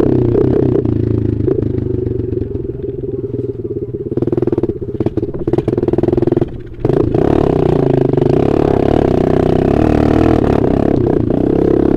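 Dirt bike engine heard on board while riding a dirt track: it eases off and drops in level over the first few seconds, cuts out briefly about six and a half seconds in, then pulls back on the throttle and runs steadily.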